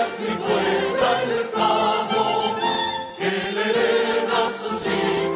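Music with a choir singing, a new phrase starting a little after three seconds in.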